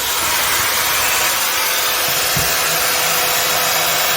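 Makita 5806B circular saw running steadily at no load with its trigger locked on, its motor and cooling fan drawing in and blowing out air.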